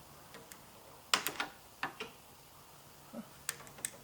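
Light metallic clicks and clinks of a wrench and hand tools working on A/C line fittings, in two small clusters about a second in and near the end.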